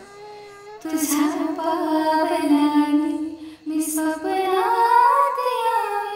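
Background song: a female voice sings a slow melody in long, drawn-out notes. It breaks off briefly a little past halfway, then climbs to higher notes and falls away again near the end.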